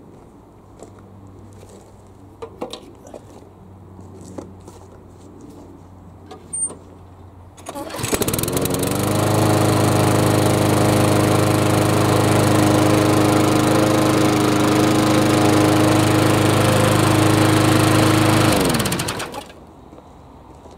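A few faint knocks and clicks of handling, then the Flymo 500 petrol lawn mower's engine starts about eight seconds in. It runs at a steady, even speed for about ten seconds, no longer racing now that it has been cleaned and oiled, and is then switched off and winds down.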